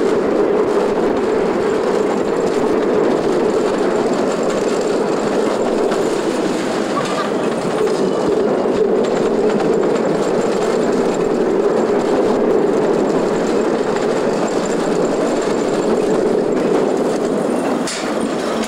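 Bobsled roller coaster car running along its open trough track, a loud, steady rolling rumble. Near the end the car slows into the station, with one sharp click.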